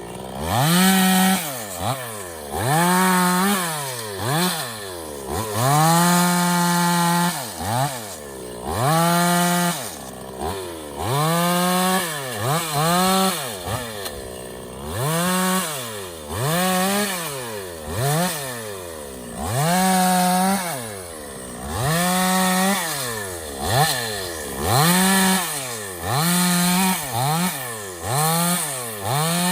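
Stihl two-stroke petrol chainsaw revved to full throttle and let back down to idle again and again, about every two seconds, each rev held briefly at the top.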